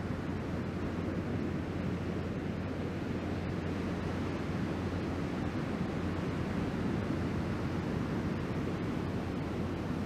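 Ocean surf breaking and washing up the beach: a steady rushing noise, heaviest in the low rumble.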